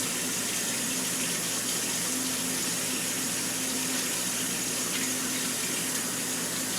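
Kitchen tap running steadily into a sink while a hand is rinsed under it.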